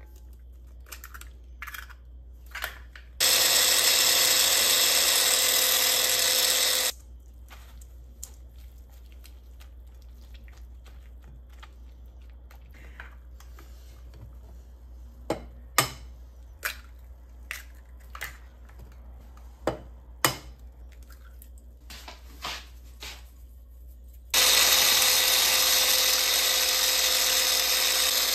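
A small electric kitchen appliance motor runs steadily in bursts with a low hum under it: it runs for about four seconds starting about three seconds in, then starts again near the end. In between come scattered sharp clicks and knocks.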